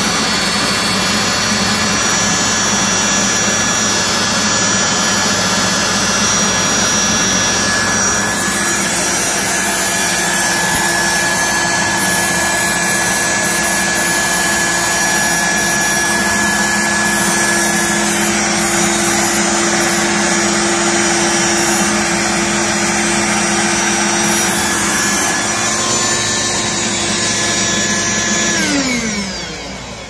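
Vacuum cleaner running steadily with a motor whine, its wand drawing dust from refrigerator coils. Near the end it is switched off and winds down, the whine falling in pitch as the sound fades.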